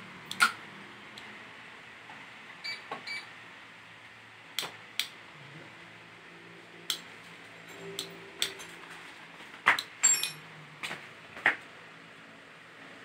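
Irregular sharp clicks and knocks from a treadmill's red safety key and console being handled. A few of them carry a short high tone, around three seconds in and again around ten seconds in.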